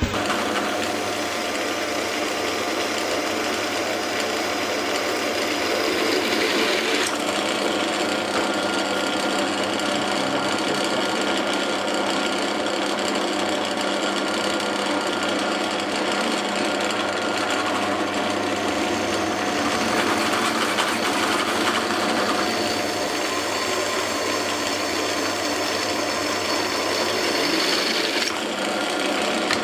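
Clarke CDP352F 16-speed pillar drill running, a cobalt bit cutting 10 mm holes through 5 mm metal flat stock: a steady motor hum with the grinding noise of the cut, whose character changes about seven seconds in and again near the end.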